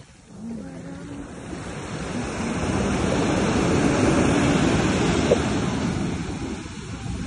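Sea wave breaking and washing up the beach, the rush of surf building over a few seconds and then dying away.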